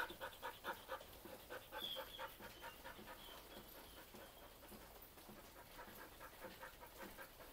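Dog panting quickly and evenly with its mouth open, about three to four breaths a second, faint.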